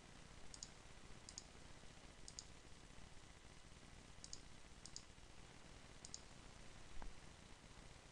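Faint computer mouse clicks, about six in all, each a quick press-and-release pair, over a low hiss. A soft low thump comes about seven seconds in.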